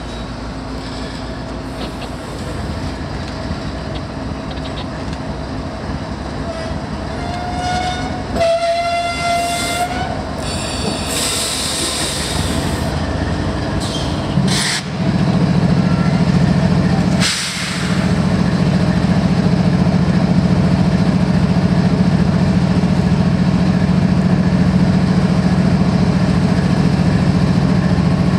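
Slow-moving train led by a GE ES44AC diesel locomotive rolling past at walking pace: a low rumble of wheels and engine that grows louder as it nears, with a brief, slightly rising whine about eight seconds in. From about fifteen seconds on, the locomotive's diesel engine gives a loud, steady drone close by.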